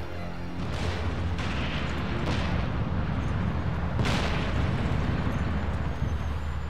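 Rock blasting with explosives: a run of sudden booms over a continuous low rumble. The loudest boom comes about four seconds in.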